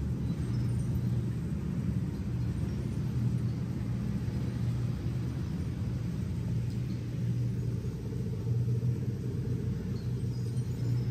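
Steady low rumble of a car driving, engine and road noise with no change in pace.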